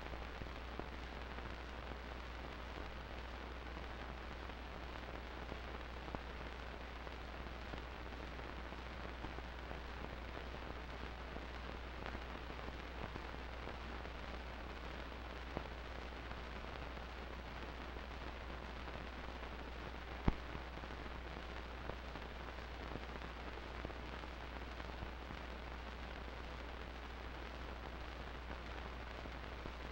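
Steady hiss and low hum with scattered faint crackles and pops, one sharper pop about two-thirds of the way through: the background noise of an old film transfer with no recorded sound, with no band music heard.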